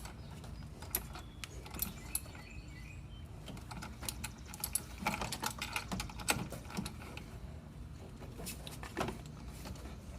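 A socket wrench clicking and metal clinking on the negative battery terminal clamp as it is tightened onto the post, with irregular small clicks and short runs of clicks.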